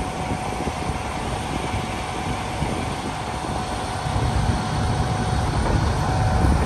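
Heavy-duty wrecker's diesel engine running, a steady rumble with a constant high whine over it, the rumble growing louder about four seconds in.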